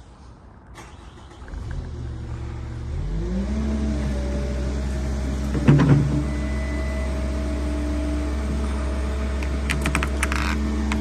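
Cat 308 excavator's diesel engine spooling up from idle to working speed over about two seconds, then running steadily under load. A heavy knock comes about six seconds in, and a few sharp clanks near the end.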